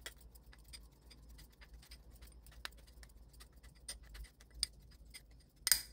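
Kitchen scissors snipping over and over in a small glass bowl of salted shrimp to mince it: a run of quick, light clicks, with a cluster of louder clinks of metal against glass near the end.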